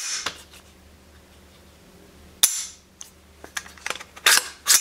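AR-15 rifle dry-fired: a sharp metallic click about halfway through as the Hyperfire HyperTouch 24C trigger breaks and the hammer falls. After it come several lighter clicks and two louder metal clacks near the end as the rifle is handled.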